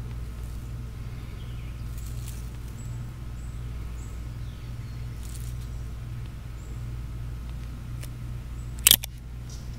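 A single shot from a Heritage Rough Rider revolver firing CCI snake shot, sharp and brief, near the end, over a low steady hum.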